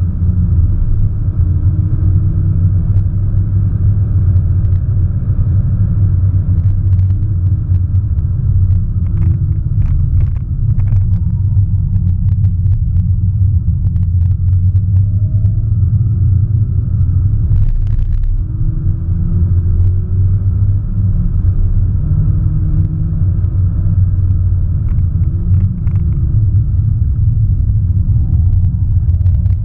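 Audi S1 Sportback's turbocharged four-cylinder engine heard from inside the cabin on track: a heavy, steady low rumble of engine and road, with the engine note repeatedly rising under acceleration and dropping, and scattered light clicks.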